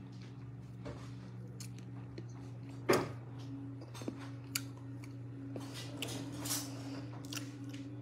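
Eating seafood soup by hand: chewing and small clicks of picking at the food and shells, with one sharp click about three seconds in. A steady low hum runs underneath.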